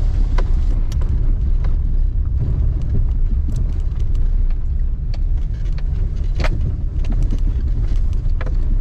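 Four-wheel-drive Jeep driving, heard from inside the cabin: a steady low rumble of engine and road noise, with scattered small knocks and rattles.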